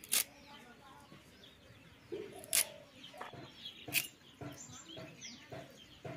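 Three sharp clicks of a blade cutting vegetables (onion flower stalks and tomatoes), over birds chirping and chickens clucking.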